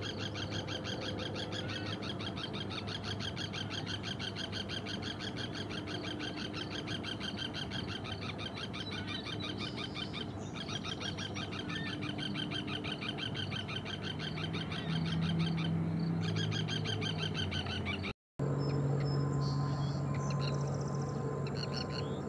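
Forster's terns calling: a fast, steady run of short repeated notes that stops about eighteen seconds in, over a steady low hum.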